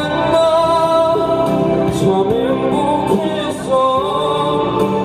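Male street buskers singing into microphones over musical accompaniment.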